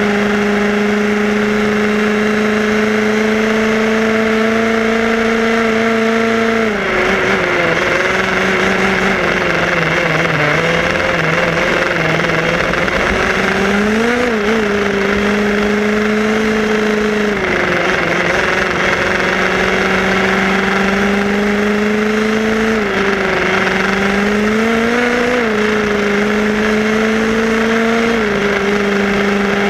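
Tamiya radio-controlled buggy driving on tarmac: a steady motor-and-gear whine, over a hiss of tyre and wind noise. The whine drops in pitch about seven seconds in, then rises and falls a few more times.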